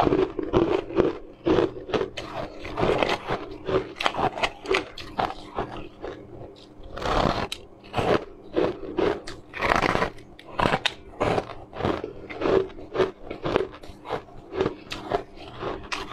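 Close-up crunching and chewing of chunks of frosted ice, bite after bite, several crisp crunches a second, with a couple of longer, louder crunches partway through.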